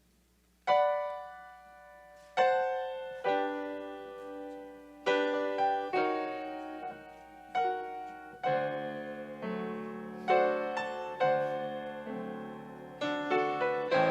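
Solo piano playing slow, sustained chords that ring and fade, starting about a second in and growing fuller in the second half.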